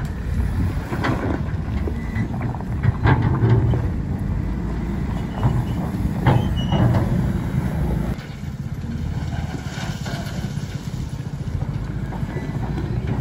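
JCB wheel loader's diesel engine running steadily as it works loose gravel, with several sharp clanks and scrapes in the first half.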